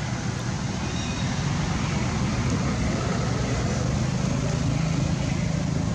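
Steady background rumble with an even hiss over it, no single event standing out.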